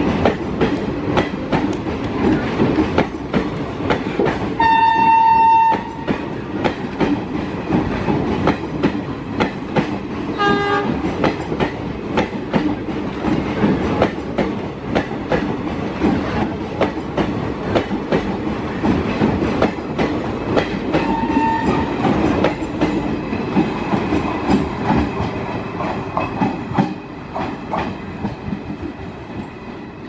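Passenger coaches of an Indian Railways express train rolling past at speed, their wheels clattering rapidly over the rail joints. A train horn sounds once for about a second and a half, about five seconds in, and a brief, fainter horn-like tone comes about ten seconds in. The clatter fades near the end.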